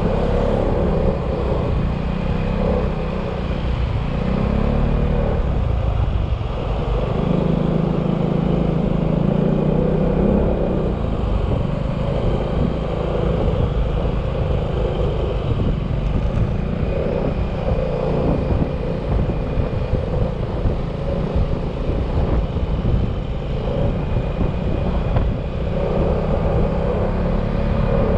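Yamaha XMAX maxi-scooter's single-cylinder four-stroke engine running while riding, its note shifting up and down over steady road and wind noise.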